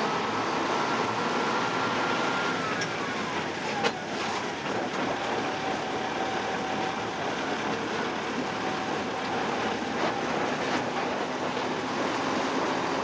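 Ogoya Railway DC121 narrow-gauge diesel locomotive running, heard from its cab: steady engine and running-gear noise. A faint whine slides down in pitch about three seconds in, and a sharp click comes about four seconds in.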